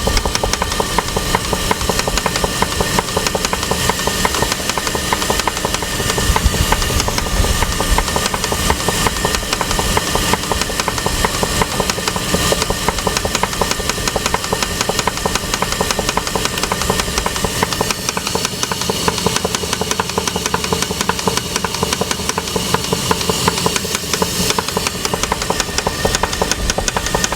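1999 Jeep 4.7-litre V8 engine running with a steady, rapid, even knock from inside the engine.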